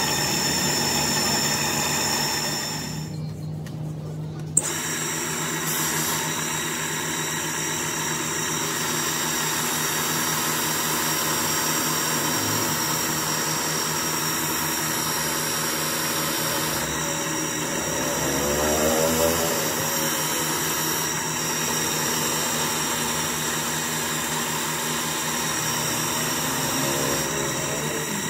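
A polishing motor runs steadily with a high whine, its spinning abrasive and buffing wheels grinding against a steel dumbbell rod held to them. The sound drops away briefly about three seconds in, then comes back with a sharp click.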